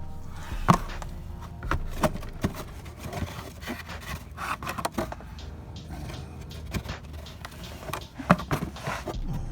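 Metal tools clinking and knocking against the Jeep Wrangler's starter and bolts during installation: sharp, irregular knocks and scrapes, the loudest about three-quarters of a second in and again near the end, over a steady low hum.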